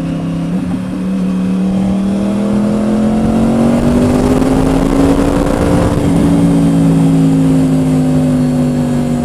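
Yamaha R1 sportbike with a Toce aftermarket exhaust, engine under steady power while riding: the note climbs slowly for about five seconds, then eases back down as the throttle comes off.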